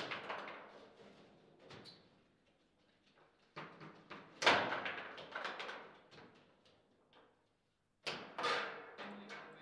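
Table football play: the ball struck by the plastic player figures on the rods and knocking against the table, as a series of sharp clacks that ring out briefly. The loudest hard shot comes about four and a half seconds in, and two quick strikes come near the end.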